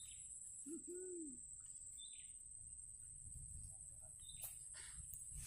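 A bird's low two-note hooting call about a second in: a short note, then a longer one that rises and falls. A steady high-pitched whine runs underneath, with a few faint short chirps.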